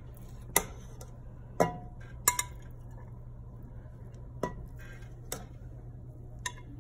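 Slotted metal spatula clinking and scraping against a stainless steel pot and a glass serving dish while cooked rice is served out: about six sharp clinks, spaced irregularly, some leaving a brief metallic ring.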